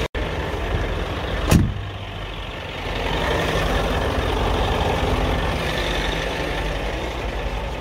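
Engine on a water tank truck running steadily, with a single thump about a second and a half in.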